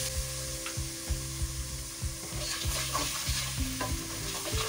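Spice masala with ginger-garlic paste sizzling in hot oil in a pot over a low flame, while a spoon stirs it, with irregular clicks and scrapes of the spoon against the pot.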